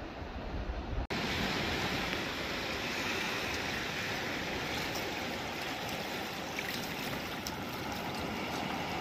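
Steady outdoor shore noise of wind and water hiss. About a second in it changes abruptly from a low wind rumble to a brighter, even hiss, with a few faint ticks later.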